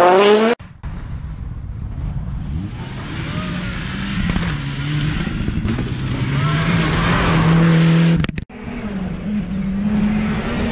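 Rally cars at full throttle on gravel stages, heard in three short clips that cut abruptly from one to the next. The engines rev hard and hold high revs. In the middle clip a Mitsubishi Lancer Evolution slides on dirt.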